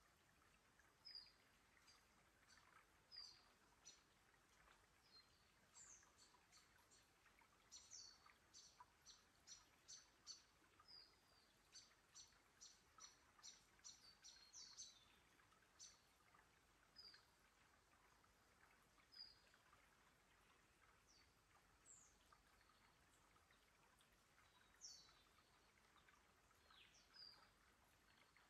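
Faint forest birdsong: scattered short, high chirps and calls, with a quick run of repeated notes through the middle, over a faint steady hiss.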